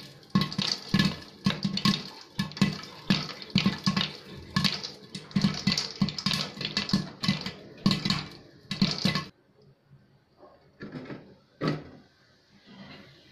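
Popcorn kernels popping in a hot pan under a glass lid: a rapid run of sharp pops over a steady sizzle of hot oil. The popping stops abruptly about nine seconds in, leaving a few scattered late pops.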